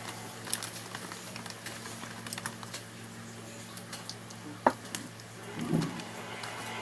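Plastic cups and plastic bags being handled on a table: scattered light taps and rustles, with one sharper knock about two-thirds of the way through. A steady low hum runs underneath.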